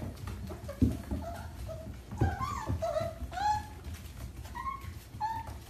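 Miniature dachshund puppies whimpering and yipping: a string of about seven short, high-pitched cries that rise and fall. Two dull thumps, about one and two seconds in, are the loudest sounds.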